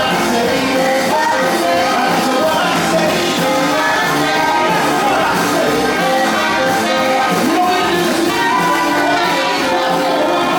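A live band playing 1950s-style popular music, with a singer's voice over the band.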